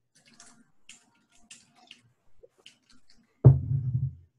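Faint scattered clicks, then about three and a half seconds in a man's short, low, hummed voice sound lasting under a second.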